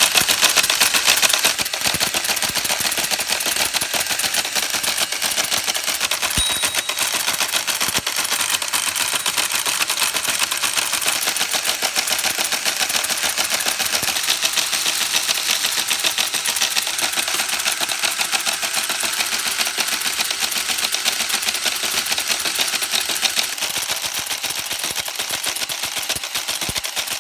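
Creed 7B teleprinter printing continuously, its type mechanism clattering in a rapid, unbroken run of clicks as it prints random characters from random 5-bit telegraph code. A short high ping comes about six seconds in.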